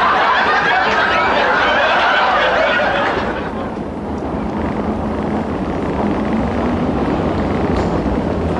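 Comedy laugh track of many people chuckling and snickering for about three seconds, then fading into a quieter steady background noise.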